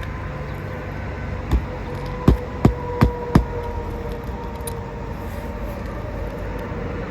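Roofing nails being driven into an asphalt shingle: one sharp knock, then a quick run of four evenly spaced blows, over a steady background hum.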